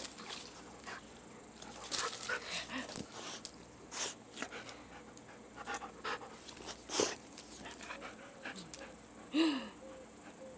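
Dog panting in short, irregular breaths close to the microphone, with a brief falling whine-like sound about nine seconds in.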